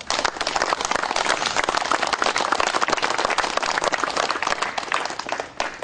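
Audience applauding: dense clapping from a roomful of people, thinning to a few scattered claps near the end.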